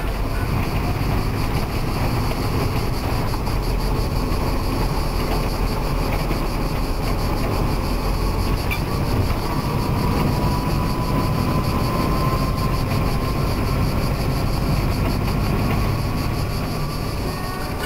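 Steady rumble of a vehicle on the move, engine and road noise heard from inside it, with a faint whine about ten seconds in.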